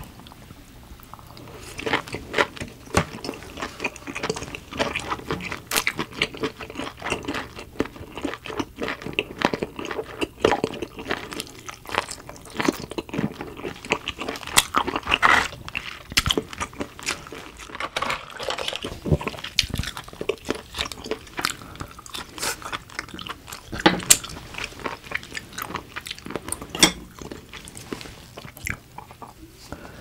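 Close-miked chewing of steamed clam and shellfish meat, with frequent sharp clicks from metal tongs and shells being handled.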